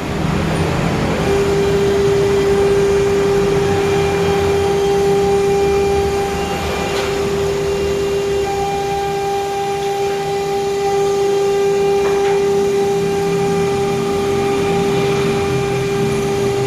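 CNC router machine running, its spindle giving a steady high whine over a rumbling machine noise.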